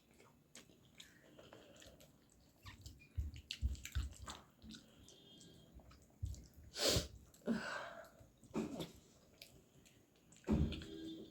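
Close-up eating sounds: chewing and small mouth clicks, with a few soft low knocks. About seven seconds in comes a short, sharp burst of breath, followed by a few smaller ones.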